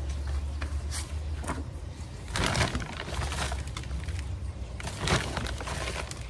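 Hands scooping loose potting soil out of a plastic potting-mix bag and dropping it into a plant pot: rustling of the bag and crumbling soil, loudest about two and a half seconds in and again briefly about five seconds in.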